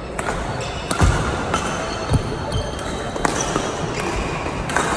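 Doubles badminton rally: a string of sharp racket-on-shuttlecock hits at irregular intervals of about half a second, mixed with heavy thuds of players' feet landing on the court floor, in an echoing sports hall.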